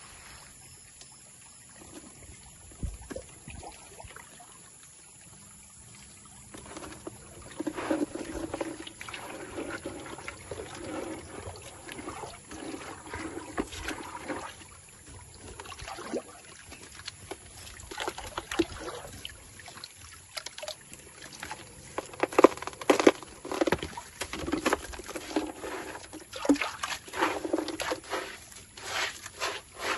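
Shallow muddy stream water sloshing and splashing as hands grope and dig underwater in the bank, with scattered sharp knocks. Faint for the first several seconds, then irregular and busier, loudest in the last third.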